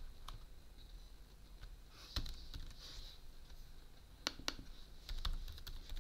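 Typing on a computer keyboard: scattered, fairly faint key clicks, with a few louder taps about two seconds in and again between four and five seconds in.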